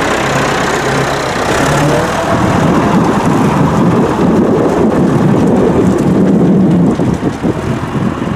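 Farm tractor engine running loudly as the tractor pulls away across a grass field, towing a flat wooden implement; the sound eases slightly near the end as it moves off.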